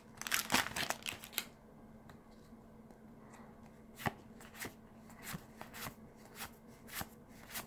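Magic: The Gathering cards handled fresh out of a torn foil booster wrapper: a quick run of crinkling and card rustle for the first second or so, then single cards slid off the stack one by one, a light snap about every half second.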